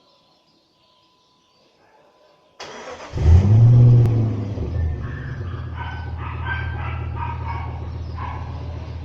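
Jeep Grand Cherokee WJ's 4.7-litre V8 breathing through a Magnaflow muffler, started up: a brief crank about two and a half seconds in, then it catches with a loud rev flare that falls back within a couple of seconds to a steady idle.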